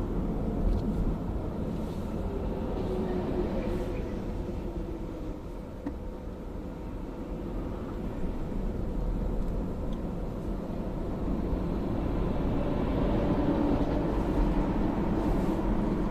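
Toyota Camry AVV50 driving, heard from inside the car: steady road noise with a faint steady hum from the left front, growing louder over the second half. The noise comes from an age-worn bearing on the driveshaft, which the uploader believes is the cause.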